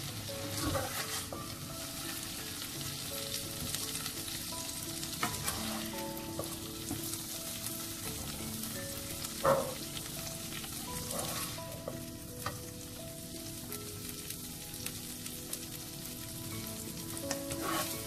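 Prawn bhuna sizzling in a nonstick frying pan while a spatula scrapes and scoops it out into a serving bowl. Now and then there is a sharper scrape or knock, the loudest about halfway through.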